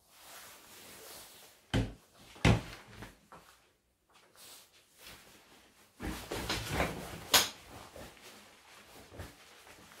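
Handling noise of things being moved about on a desk: two sharp knocks about two seconds in, then rustling and a sharp click about seven seconds in.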